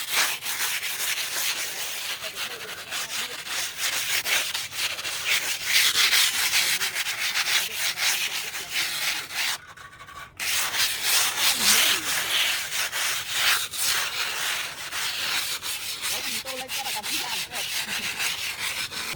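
Continuous scraping and rubbing, made of many quick strokes, with a brief pause near the middle.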